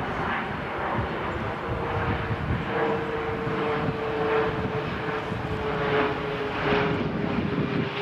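Aeroplane engines droning overhead as the plane heads in toward the nearby airport. Its steady engine tone sinks slowly in pitch from a couple of seconds in.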